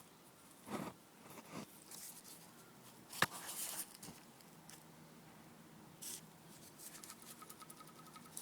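A few rustles and one sharp click, then a faint steady hum with a fast, even ticking of several ticks a second from about seven seconds in. This is the light clicking from the Suzuki DL650 V-Strom's engine, which the owner fears is a loose cam chain even after a new front tensioner.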